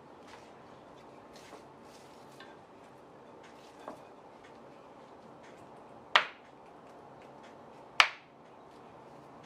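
Quiet room tone broken by two sharp, brief taps or knocks, one about six seconds in and the loudest about eight seconds in, with a fainter tap near four seconds.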